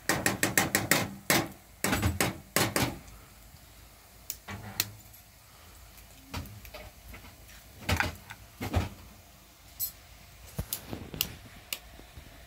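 Metal clatter: a fast run of sharp taps and knocks over the first three seconds, then single knocks now and then.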